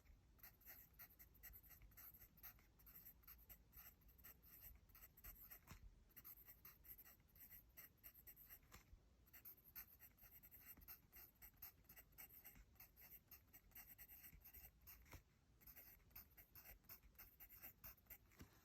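Faint pencil scratching on paper in quick short strokes of handwriting, with brief pauses about nine and fifteen seconds in.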